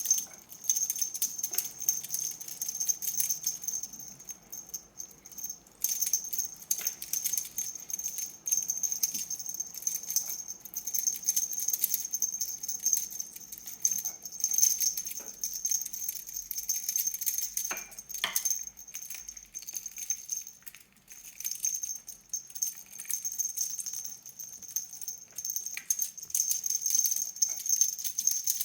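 Small jingle bell on a cat toy jingling in irregular runs as a cat bats and shakes it, with a few short lulls.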